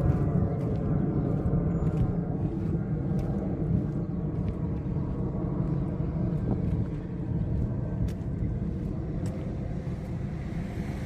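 Steady low rumble of a car driving slowly, engine and road noise, easing off a little toward the end.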